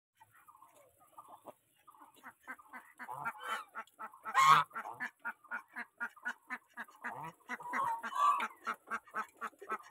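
Domestic geese feeding from a bowl of grain: a fast patter of bill clicks and gobbling at several a second, with honks over it. The loudest honk comes about four and a half seconds in, and more calls follow around eight seconds.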